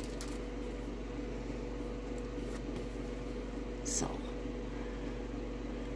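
Steady electrical or appliance hum in a small room, with one short click or paper tick about four seconds in.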